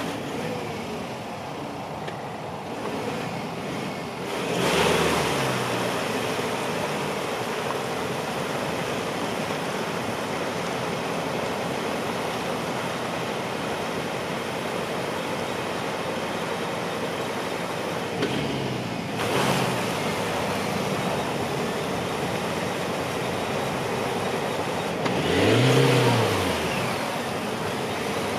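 Ford Ranger 4x4 pickup's engine running with its wheels spinning in mud while the truck is stuck, revved hard three times: about five seconds in, again after about nineteen seconds, and near the end, each surge rising and falling in pitch.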